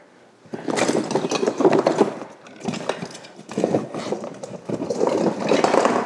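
Rummaging in a storage bin of Christmas decorations: items being moved and lifted out make a dense run of small rustles and clicks, beginning about half a second in and coming in several louder waves.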